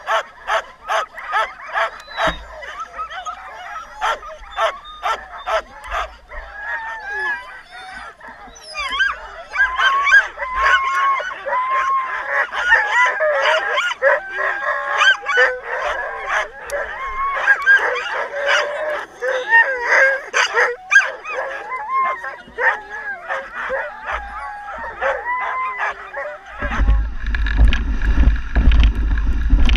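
A team of sled dogs barking and yelping, many at once. Short sharp barks at first, then a dense chorus of high overlapping yelps and howls. Near the end the barking gives way to a low rumble.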